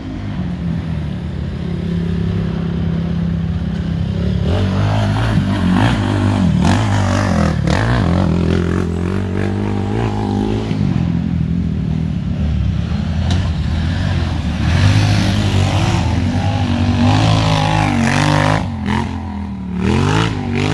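Racing ATV engines running, with the pitch climbing and dropping as the throttle is worked: a steady engine note holds underneath while others rev up and back off, strongest about a third of the way in and again near the end.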